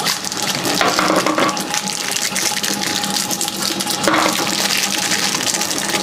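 Steady rush of running water, even and unbroken.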